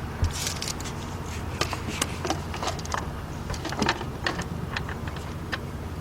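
Irregular sharp metallic clicks and taps of a ratchet being worked onto an engine's serpentine belt tensioner, over a steady low hum.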